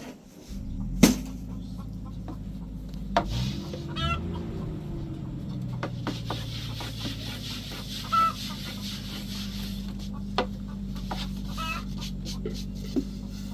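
Chickens clucking several times over a steady low hum, which rises briefly in pitch around four seconds in. There are a few sharp clicks, the loudest about a second in.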